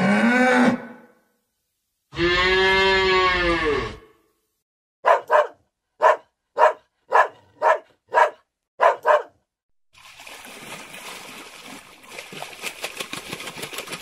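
Cows mooing: a short rising moo, then a longer moo of about two seconds. Then a dog barks about nine times in quick pairs, followed by a steady hiss with fast ticking.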